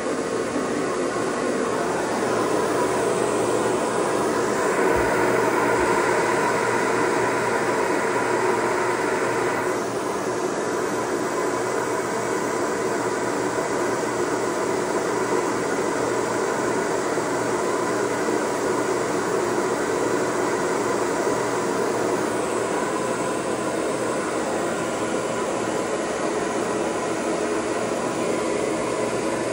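Shower water running steadily, a continuous spray hiss. From about five seconds in, it turns brighter for a few seconds before settling back.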